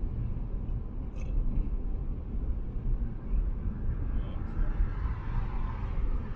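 Car driving at expressway speed: a steady low rumble of tyre and road noise with the engine underneath.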